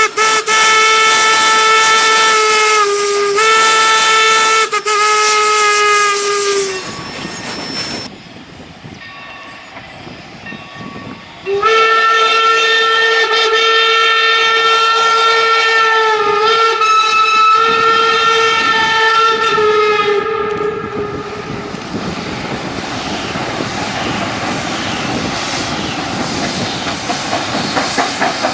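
Steam locomotive whistle blown in two long blasts, the first with two short breaks and the second, starting near the middle, longer still. Then steam hissing as the train runs on, with a faint rhythmic beat building near the end.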